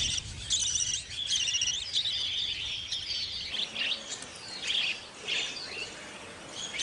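Budgerigars chirping and chattering in a run of short, high calls, densest in the first couple of seconds and thinning out after.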